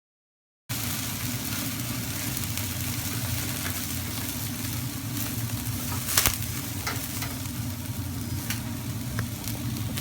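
Lamb shish kebab skewers sizzling on a gas-fired mangal grill at full heat, with a steady low rush beneath and scattered sharp pops and crackles of spitting fat, the loudest about six seconds in. The sound cuts in abruptly under a second in.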